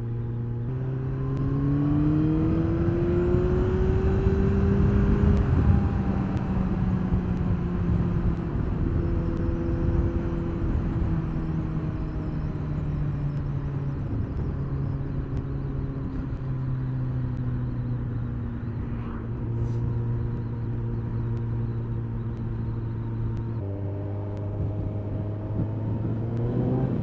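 Kawasaki ZZR1400 inline-four motorcycle engine under way, with wind rushing at speed. Its pitch rises for the first few seconds, then eases off slowly, and near the end jumps up suddenly and climbs again.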